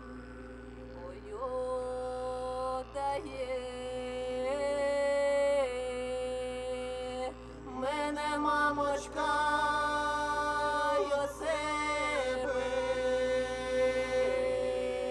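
Ukrainian folk song sung by a group of voices in long held, sliding notes over a steady low drone. A single voice enters about a second in, and more voices join in harmony about halfway through.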